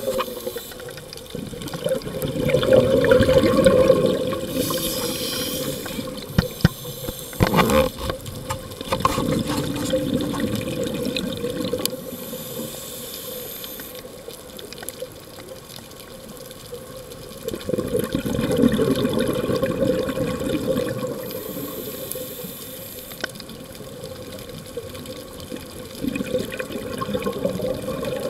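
Underwater bubbling from a scuba diver's regulator exhaust, in four loud stretches several seconds apart with a quieter steady rush of water between.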